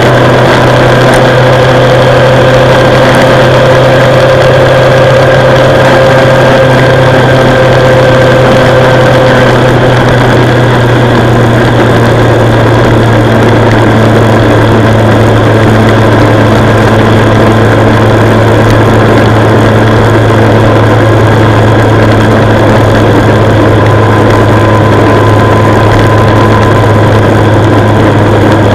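Motorcycle engine running steadily at motorway cruising speed, under heavy wind and road noise. The engine note dips slightly about ten seconds in.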